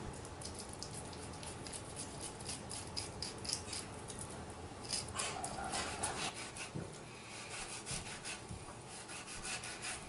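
Fillet knife slicing and scraping through a northern pike on a wooden cutting board, a quick run of short scraping strokes as the fillet is cut away from the fish.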